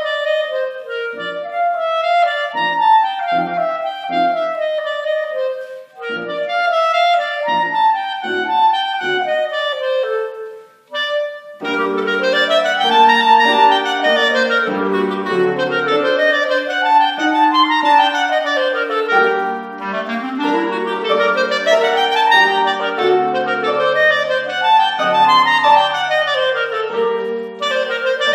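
Soprano clarinet played solo: a melody of short, separated notes, a brief pause about eleven seconds in, then fast runs sweeping up and down the range.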